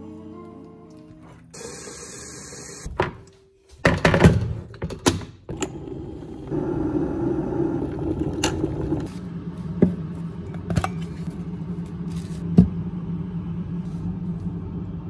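Song music ending in the first second or so, then a few sharp knocks and clatter of kitchen things, then an electric kettle heating water with a steady hiss and hum, marked by a few small clicks.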